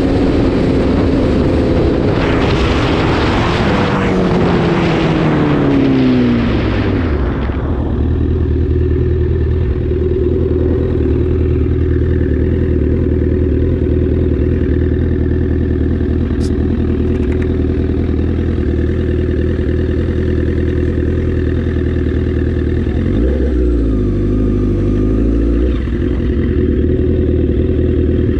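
2008 Yamaha R6 inline-four with an Akrapovic megaphone exhaust, heard from the rider's helmet: wind rush on the microphone and engine revs falling as the bike slows over the first several seconds. It then runs steadily at low revs while rolling slowly, with a brief rise and fall in revs about three quarters through.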